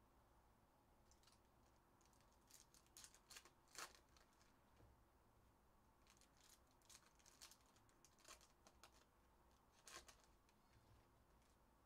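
Faint crinkling and tearing of foil trading-card pack wrappers as Topps Chrome packs are opened and handled, in scattered clusters of sharp crackles, the clearest about four seconds in and again near ten seconds.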